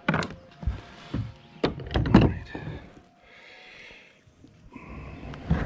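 Several dull thumps and knocks, with the rub of a jacket sleeve against the camera, as a caught smallmouth bass is handled and released from a kayak.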